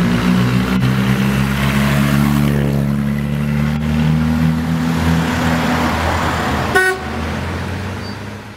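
Austin-Healey 100M's four-cylinder engine running as the car drives away, its note steady and then fading into the distance. A short car-horn toot sounds about seven seconds in.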